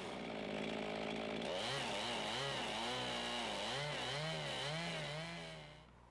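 Two-stroke chainsaw running, steady at first. From about a second and a half in, its engine pitch rises and falls over and over as it cuts into a log, then it stops shortly before the end.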